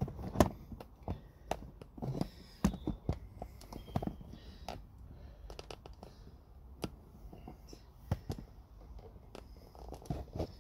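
Irregular light clicks and knocks from hands and parts being handled in a car's engine bay, over a faint low rumble.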